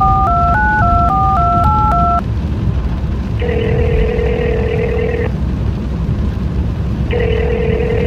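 A phone number being dialled on a touch-tone keypad, a quick run of paired beeps for about two seconds, then a ringing tone heard twice, each ring about two seconds long. Under it runs the steady low rumble of car road noise.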